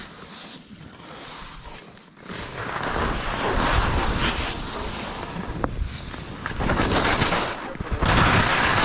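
Wind buffeting the microphone and skis scraping and hissing over the snow as a skier turns down a steep slope. Quieter for the first two seconds, then louder and rougher from about two and a half seconds in.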